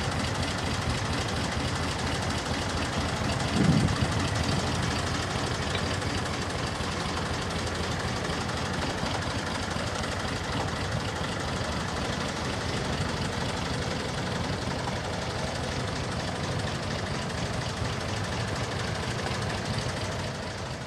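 Small narrow-gauge shunting locomotive's engine running steadily as it moves slowly with a wagon. A brief louder low burst comes about four seconds in.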